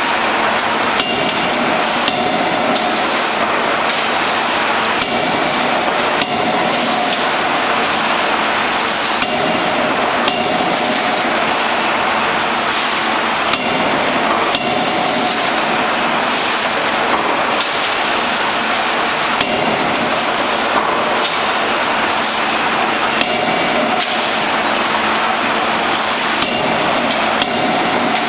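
CNC closed-die forging hammer working: short, sharp blows at irregular spacing, about one every second or two, over a steady, loud machine din.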